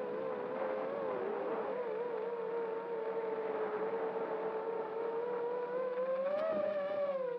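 FPV quadcopter's motors and propellers whining steadily, heard from its onboard camera, the pitch wavering slightly with throttle and rising briefly about six and a half seconds in, where a faint tick is heard.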